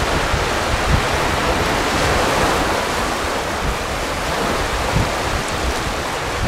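Steady wash of surf on a sandy beach, with wind buffeting the microphone in low gusts.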